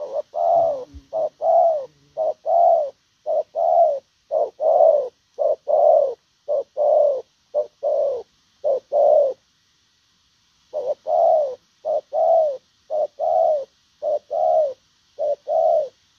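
Spotted dove cooing: a long run of short coos in quick groups, breaking off for about a second and a half partway through, then starting again.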